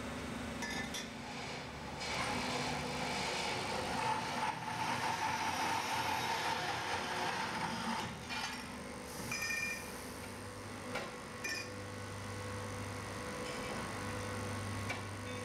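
Metal-tube bending and forming machines working in an exhaust-pipe factory. A steady mechanical run with a whine rises from about two seconds in and eases off near eight seconds. After that come a few sharp metallic clicks and knocks over a low hum.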